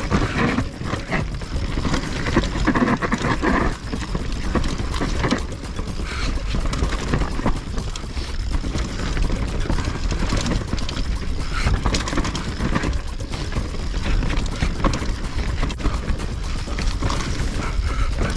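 YT Capra enduro mountain bike riding down a dirt forest trail: tyres running over dirt and roots, with the bike clattering and rattling over bumps in quick, irregular knocks.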